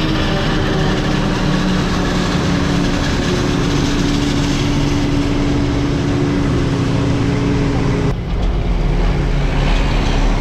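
Old Mack truck's diesel engine running steadily. About eight seconds in, the sound shifts abruptly to a deeper rumble.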